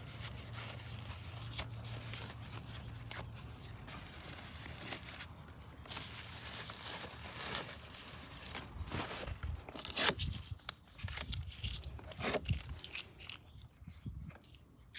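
Paper being peeled and torn off freshly painted sway bar parts, crinkling and crackling irregularly, with the loudest tear about ten seconds in.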